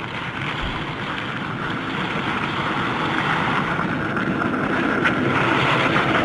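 Skateboard wheels rolling on pavement: a steady rolling rumble that grows gradually louder as the board comes closer.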